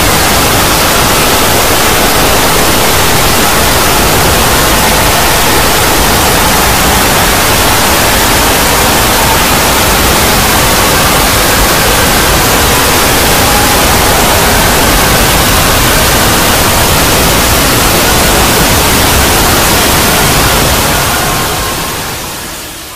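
Loud, steady wall of static-like hiss, the soundtracks of dozens of videos playing at once blurring together, with faint traces of tones inside it. It fades out near the end.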